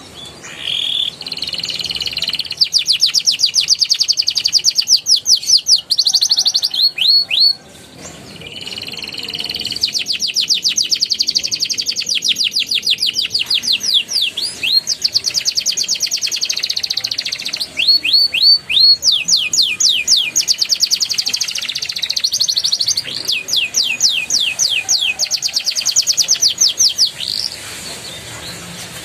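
Domestic canary singing a long song of fast rolling trills: rapid runs of repeated high notes, switching to a new trill every few seconds.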